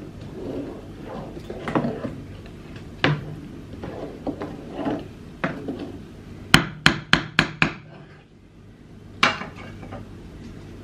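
A spoon stirring and knocking against a cooking pot, then six quick sharp taps in under a second and a half, with one more knock near the end.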